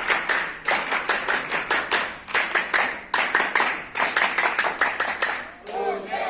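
A group of people clapping together in distinct, quick claps, about five a second, in runs with short breaks. It fades out shortly before the end.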